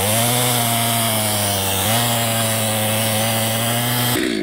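Stihl MS 250 chainsaw's two-stroke engine running at full throttle as the saw cuts through a large log on a freshly hand-filed chain. It pulls steadily with two slight rises in pitch, then the throttle is released near the end and the engine winds down.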